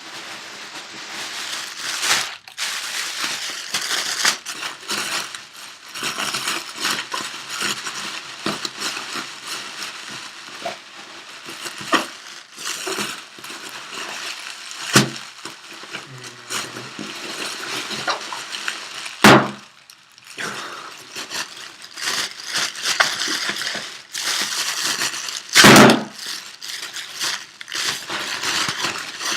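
Plastic air-filled packing pillows being squeezed and crinkled, with sharp pops as pillows burst, the two loudest about two-thirds of the way through and near the end.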